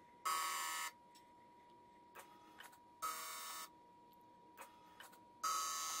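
Three short electric buzzes, evenly spaced, from a C5 Corvette's fuel system as the scan tool cycles the fuel pump and injectors one by one in a fuel injector balance test. The footage is sped up to four times normal speed. A faint steady high tone and a few light clicks sit underneath.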